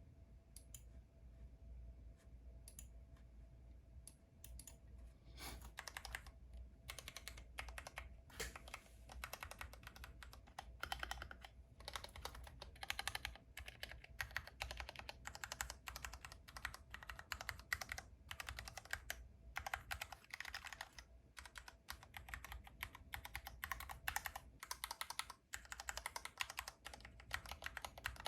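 Glorious GMMK Pro 75% aluminium-cased mechanical keyboard being typed on: a few scattered keystrokes at first, then, about five seconds in, steady fast typing with a quick run of key clicks.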